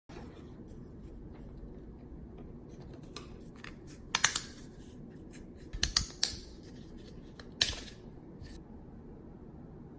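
3D-printed PLA tripod parts handled and fitted together by hand: scattered light plastic clicks and taps, with a few sharper knocks about four, six and seven and a half seconds in.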